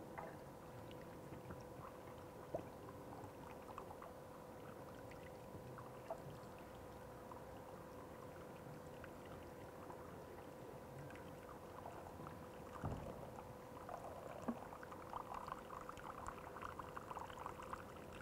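Water poured from a plastic bottle into the pipe of a surface water pump, a faint trickle with small clicks that grows busier near the end: the pump is being filled with water to prime it, so it will not suck air and run without pushing water. A faint steady hum runs underneath.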